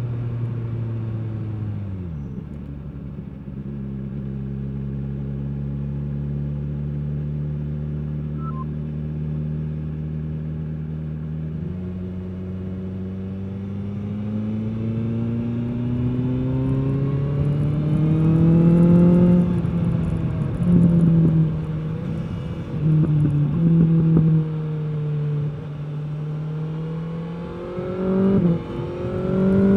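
2021 BMW S 1000 R's inline-four engine through its stock exhaust, heard from the rider at commuting speed. The note drops about two seconds in and holds steady, then climbs through the revs from about halfway and rises and falls several times with the throttle near the end.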